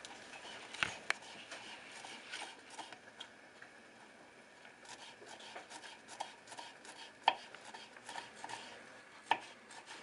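Kitchen knife finely chopping fresh cilantro on a wooden cutting board: irregular runs of short taps of the blade on the wood, with a few louder knocks.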